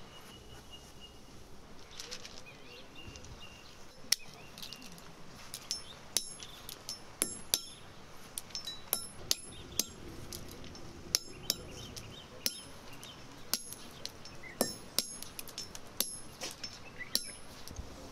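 Walnuts cracked one after another with a brass pestle struck against a brass mortar: sharp, irregular knocks with a short metallic ring, one or two a second, starting about four seconds in.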